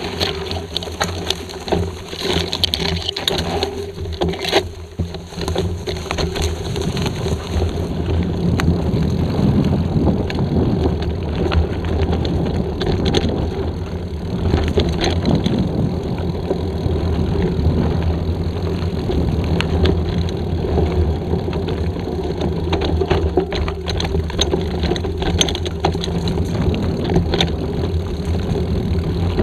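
Mountain bike ridden fast down a dirt forest singletrack: a steady low rumble of tyres and air, with the frame and chain clattering over bumps.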